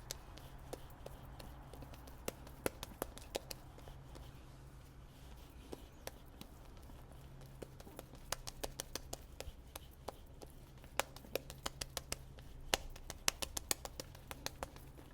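Close-miked safety razor scraping through lathered stubble, giving irregular runs of sharp crackling clicks, densest in two stretches in the second half.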